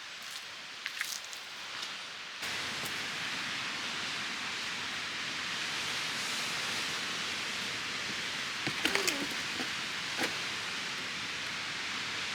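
Steady rushing of strong wind on an exposed mountain trail, coming in suddenly about two seconds in, with a few light clicks and rustles about nine seconds in.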